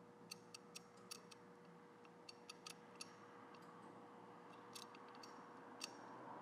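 Bare ratchet mechanism, its faceplate off, with the drive turned slowly by hand: faint, irregular clicks as the spring-loaded pawl snaps over the gear teeth, some in quick little runs.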